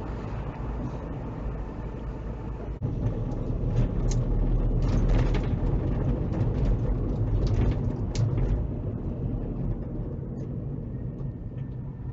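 Road and tyre noise with the car's engine, heard from inside the cabin through a dash cam, louder while the car drives at speed from about 3 s in. Near the end a faint steady tone joins it, the alarm of a level crossing whose red lights are flashing.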